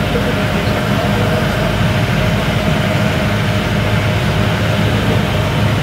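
A river ferry's engine running with a steady low drone.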